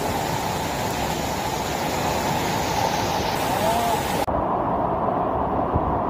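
Rushing water of a rain-swollen mountain stream and waterfall, a steady loud roar. About four seconds in the sound cuts abruptly to a duller, deeper rush with the high hiss gone.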